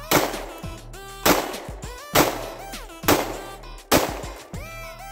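Five shots from a CZ P07 9mm pistol, fired roughly one a second, over background music.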